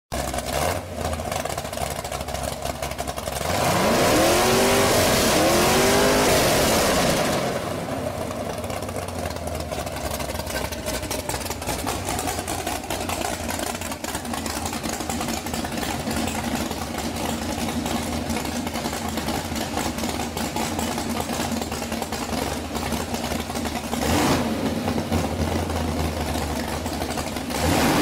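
Chevrolet 572 big-block V8 idling steadily, revved several times in quick succession about four to seven seconds in, with another single rev near the end.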